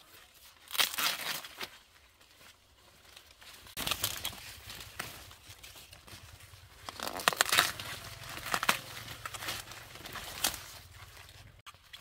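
Dry corn leaves and husks rustling and tearing in several rough bursts as corn is harvested by hand.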